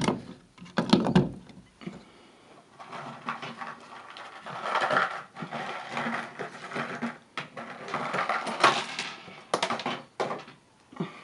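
Handling noises: irregular knocks, clicks and rustling scrapes. The sharpest knocks come about a second in and again near nine seconds, with longer scraping stretches in between.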